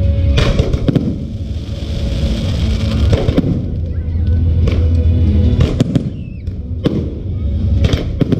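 Aerial fireworks display: shells bursting with sharp bangs every second or so over a continuous low rumble, with a spell of crackling about two seconds in.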